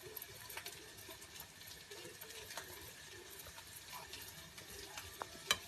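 Soft scraping and light scattered clicks of a spoon spreading béchamel over boiled macaroni in a baking dish, with one sharper click near the end.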